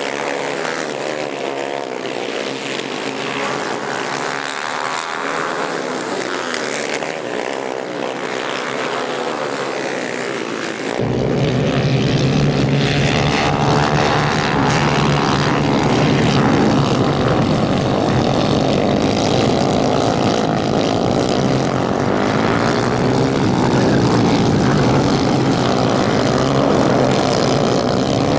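250 cc kayak-class racing kart engines buzzing at high revs, their pitch rising and falling as the karts race. About eleven seconds in the sound turns louder and fuller as karts pass close.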